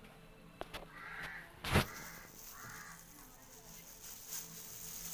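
A crow cawing in short harsh calls, about four of them. A single sharp knock about two seconds in is the loudest sound.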